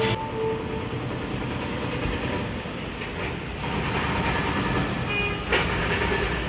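Steady rumble of city street traffic, with a brief louder swell about five and a half seconds in.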